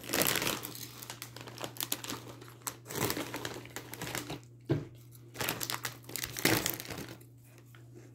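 Plastic snack bag crinkling in several bursts as it is handled and reached into.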